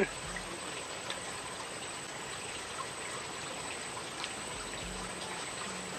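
Steady outdoor background hiss with no distinct events, only a few faint ticks.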